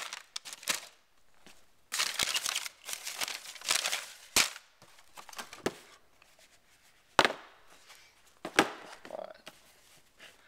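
Leather sneakers being handled in their cardboard shoebox: bursts of rustling and scuffing, with three sharp knocks, the loudest a little past halfway.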